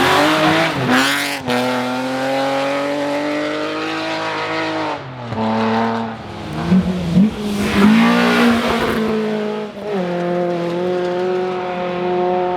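Rally car engine at high revs under load, the pitch climbing slowly, then dropping and picking up again three times as the driver lifts or changes gear. A sharp crack comes about a second and a half in, after a loud rush of noise at the start.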